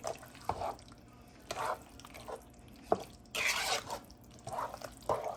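Thick baked-bean and ground-beef mixture being stirred in a pot: irregular wet squelching scrapes with a few sharp knocks of the utensil against the pot, the loudest wet stretch a little past halfway.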